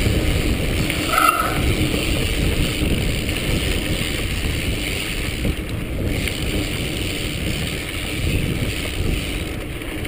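Mountain bike ridden fast along a dirt singletrack: steady wind rush on the microphone with tyre noise and the bike rattling over bumps, and a brief squeak about a second in.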